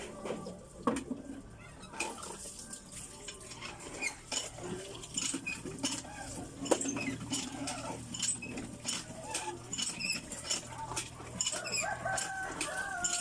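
Chickens clucking, clearest near the end, over rapid light clicking and tapping.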